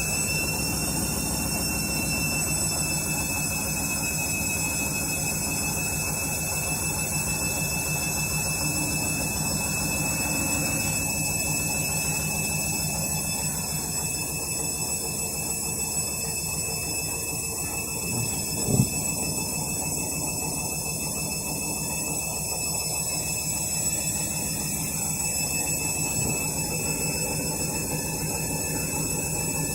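Candy washing machine spinning at about 400 rpm on its final spin: a steady motor whine, just levelling off at spin speed at the start, over an even drum rumble. One brief knock about two-thirds of the way through.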